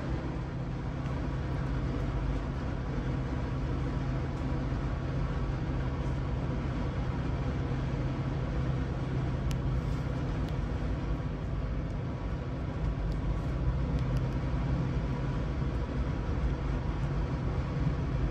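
Steady low drone and rumble of a moving vehicle, with a constant low hum and no breaks.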